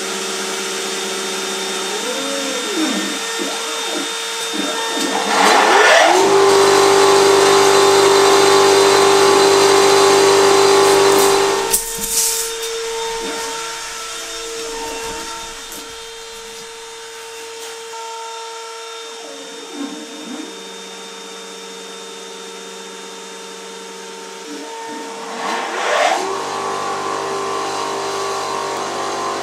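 Electra Beckum dust collector and an enclosed DIY CNC router running together, a steady machine drone with a constant pitched tone on top. The noise gets much louder for about six seconds, drops to a muffled level for a while, then comes back up near the end.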